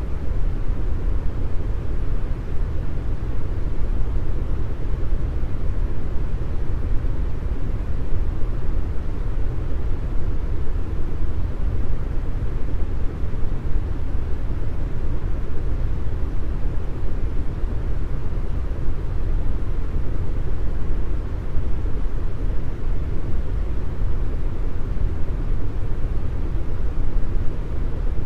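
Synthetic deep brown noise: a steady, unbroken hiss weighted heavily to the bass and fading toward the high end.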